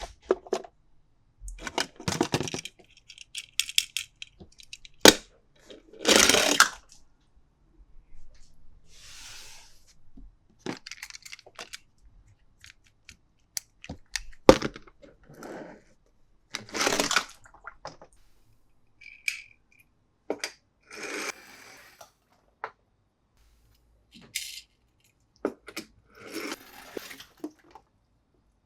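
Toys and their packaging being handled: irregular clicks and taps with short rustling and tearing bursts, the loudest a few seconds in and again past the middle.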